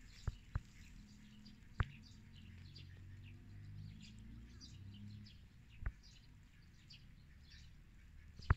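Faint birdsong in the background: many short, high chirps, with a few sharp clicks close to the microphone.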